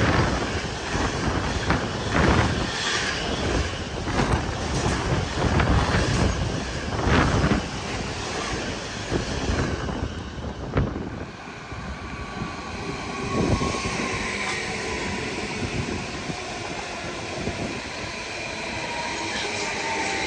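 A long intermodal freight train carrying semi-trailers on pocket wagons runs through at speed, its wheels clattering rhythmically over the rail joints. The clatter stops about ten seconds in. A quieter steady electric whine from an electric multiple unit follows and grows slowly louder toward the end.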